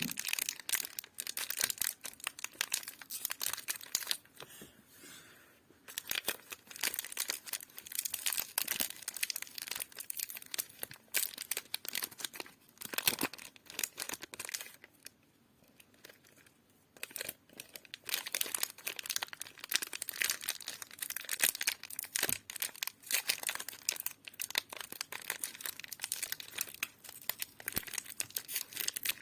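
Sweet and lollipop wrappers being crinkled and torn open, a dense crackling that pauses twice, about four seconds in and again around fifteen seconds in.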